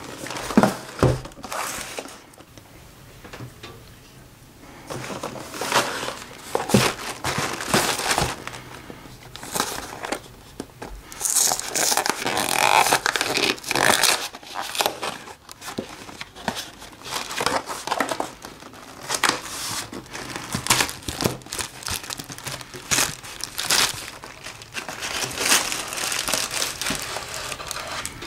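Paperboard cake box being handled and its end flap worked open: irregular rustling, crinkling and sharp taps of cardboard under the fingers, with a denser stretch of crinkling about twelve seconds in.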